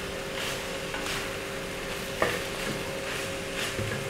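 Wooden spatula stirring and scraping crushed tender jackfruit and crushed coconut around a clay pot (manchatti), in strokes about twice a second, with one sharper knock against the pot about two seconds in.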